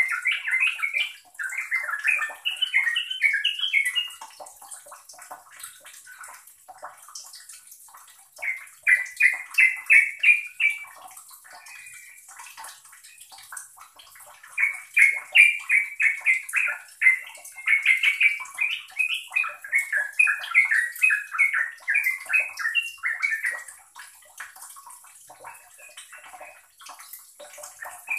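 Yellow-vented bulbul singing in bursts of fast, bubbling notes. The bursts come at the start, again around nine seconds in, and in a long run through the middle, with fainter scattered notes between.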